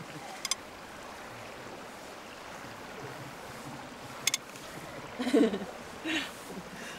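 Steady flow of a small stream with wind on the microphone; a spoon clinks on a ceramic bowl twice, and a short vocal sound comes about five seconds in.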